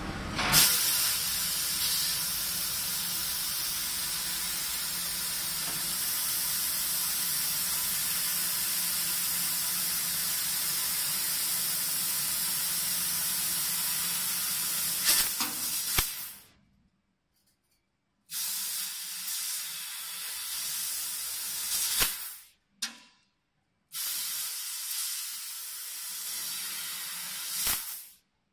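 1 kW fiber laser pipe cutter cutting 4 mm stainless steel pipe: a steady hiss of assist gas from the cutting nozzle. The hiss is marked by a few short sharp cracks and stops suddenly several times before coming back.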